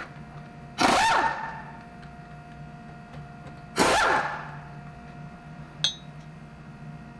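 A screwdriver prying against a truck's front brake caliper to push it back: two loud metal-on-metal scrapes about three seconds apart, each ringing for about half a second, then a light clink.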